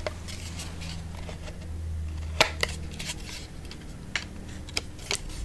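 A few scattered light clicks and taps as a skull replica is handled and turned over in the hands, over a low steady hum.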